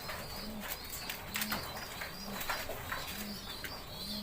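Domestic pigeons cooing: a run of short low coos about twice a second, with scattered light taps and a faint high twittering.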